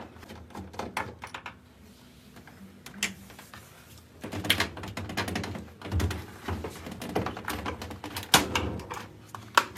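Irregular clicks, taps and knocks of plastic parts being handled and pried apart as a washing machine's magnetic door switch is dismantled, quieter for a couple of seconds early on and busier in the second half.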